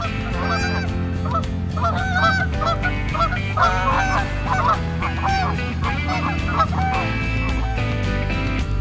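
Geese honking many times in quick succession over a steady guitar music track; the honking fades out about seven seconds in while the music carries on.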